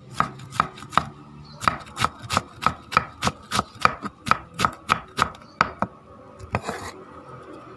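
Food being chopped on a board: a quick run of sharp strikes, about three a second, that stops near the end with one last strike and a short rustle.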